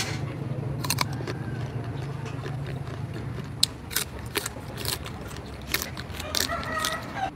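Crunchy chewing of raw green mango, sharp irregular crunches starting about three and a half seconds in, over a low steady hum.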